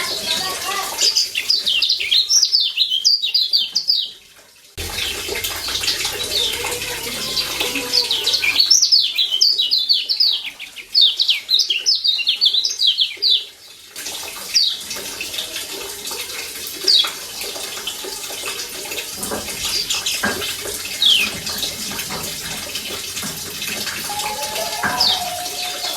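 Yellow white-eyes (kecial kuning) giving rapid runs of short, high 'ciak' chirps in two dense bursts, then only occasional single chirps, over a steady hiss.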